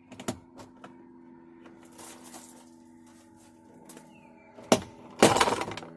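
Plastic retaining clips of a Chrysler Sebring door panel popping loose as the panel is pulled off the door: a few sharp clicks, then near the end a loud crack and a short burst of cracking and scraping. It sounds like the panel is breaking, which is the sign that the clips are coming out.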